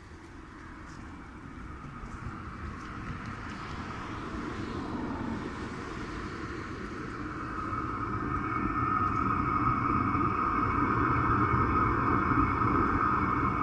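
Chinese diesel air heater running, heard from outside the van near its exhaust: a steady low rumble from the burner with a steady whine from its fan, growing louder over the first several seconds.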